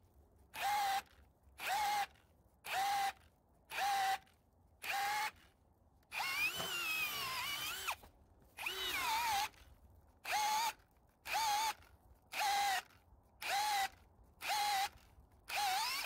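Ryobi 18V brushless hammer drill boring wood with a 1-inch spade bit, running in short bursts about once a second and cutting out after each. Between these it runs twice for a second or two. It is struggling under load, which the owner thinks a high-output battery would cure.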